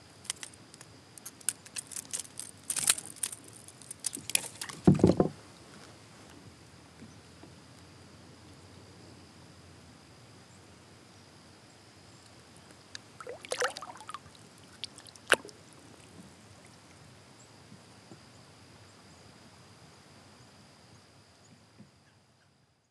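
Handling noises at the side of a plastic fishing kayak while a hooked smallmouth bass is unhooked: quick clicks and rattles of the pliers and tackle, ending in a loud thump against the kayak about five seconds in. Then quiet water around the boat, broken by a short cluster of knocks and one sharp click midway, before the sound fades out.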